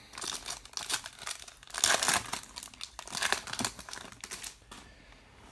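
A trading-card pack wrapper being torn open and crinkled by hand, in a run of irregular crackles that dies down near the end.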